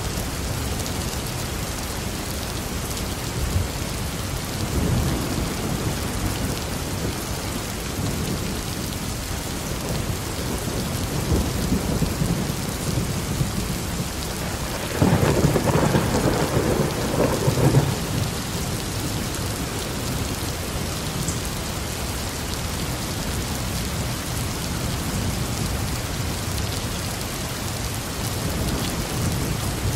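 Steady rain falling, with low rolls of thunder. About halfway through, a louder peal of thunder starts suddenly and rumbles for about three seconds.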